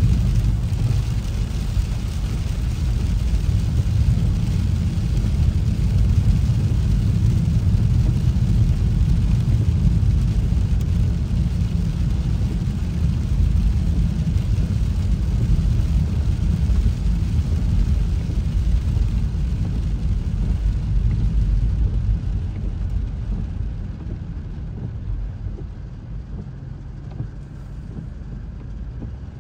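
Car driving on a rain-soaked road, heard from inside the cabin: a steady low rumble of tyres and engine with a hiss from the wet road surface. The sound grows softer over the last several seconds as the car slows.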